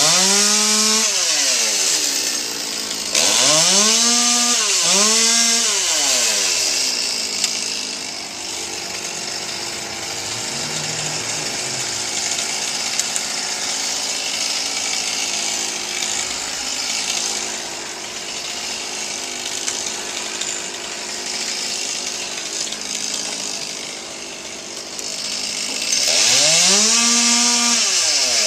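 Chainsaw revving up and down in repeated rises and falls, with a long, steadier stretch of running in the middle as it cuts tree wood, then revving again near the end.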